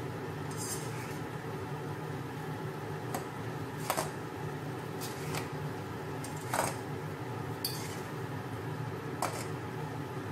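A metal fork and a spatula clink and scrape against a nonstick pot while stir-frying pancit canton noodles. Several sharp clinks come at irregular intervals of a second or two, over a steady low hum.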